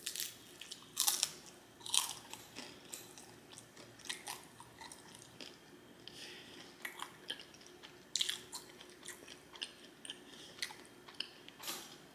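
A person chewing and biting food close to the microphone: irregular wet chewing clicks and smacks, louder about one and two seconds in and again around eight seconds.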